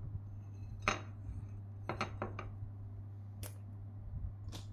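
Clinks and knocks of a ceramic plate as a slice of cake is handled on it: one sharp clink about a second in, a quick cluster near two seconds, and two more later. A steady low hum runs underneath.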